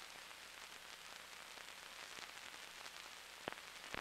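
Faint, steady hiss and crackle of an old film soundtrack, with two sharp clicks near the end.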